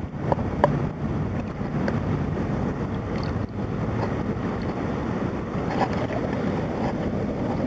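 Creek water sloshing and swirling in a plastic gold pan held under the current, as the gravel is washed down to its heavy concentrate, with a few small clicks of gravel near the start.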